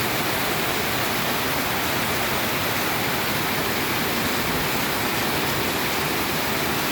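Heavy tropical monsoon rain pouring down, a steady, even hiss.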